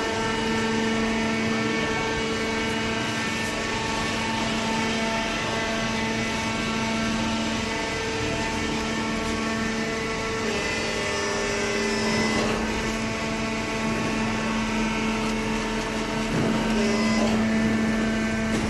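Hydraulic baler's motor and pump running with a steady hum, the pitch shifting slightly about halfway through, with a few faint knocks of the machine working.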